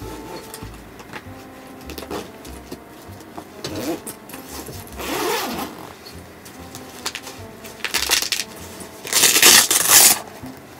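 Zipper on a fabric pet carrier bag being run in several short pulls. The longest and loudest pull comes about nine seconds in, as the top is unzipped and opened.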